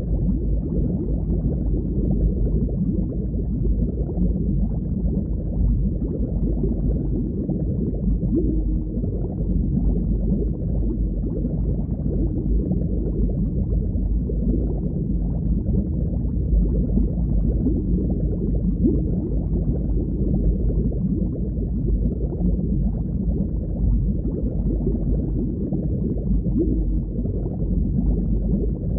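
Underwater ambience: a steady, low, muffled rush of water.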